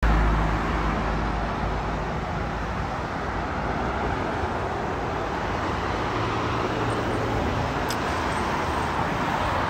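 Steady road traffic noise from passing cars, with a low engine rumble loudest at the start that eases over the first second or two.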